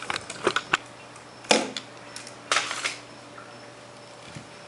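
Handling noise from a camera being lifted off its tripod: a few light clicks, then two louder clattering knocks about a second and a half and two and a half seconds in.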